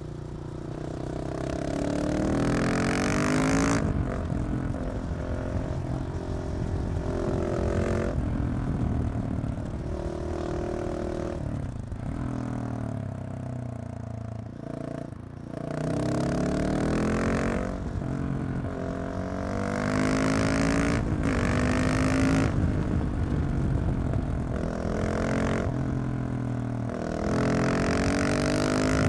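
KTM 690 SMC R's single-cylinder engine through a Leovince exhaust with the catalytic converter removed, accelerating through the gears. The pitch climbs, drops sharply at each shift, then climbs again, repeated many times, with a few steadier stretches between pulls.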